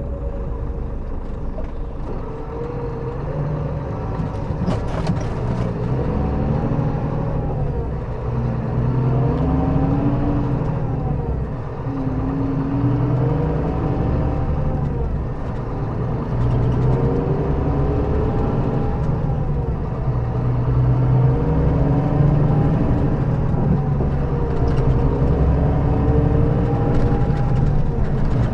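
Scania K400B coach's engine running under load as the bus drives. Its note rises and falls several times, in the way an engine does when it pulls up through the gears.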